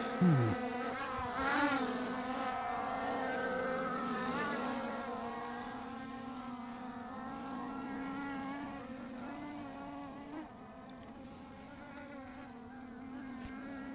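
Off-road vehicle's engine running steadily while driving, a droning hum that wavers slightly in pitch.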